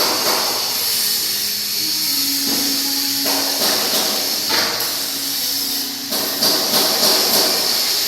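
CO2 (MIG) welding arc hissing and crackling in short runs: a burst at the start, another about three and a half seconds in, and a third about six and a half seconds in, over a steady high hiss.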